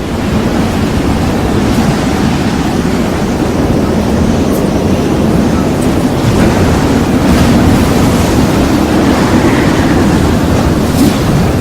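Wind buffeting the microphone: a loud, steady rushing noise, heaviest in the low range.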